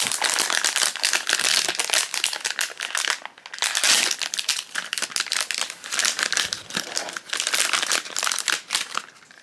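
Foil blind-box pouch crinkling and crackling as it is handled and worked open, with a short lull a little past three seconds in.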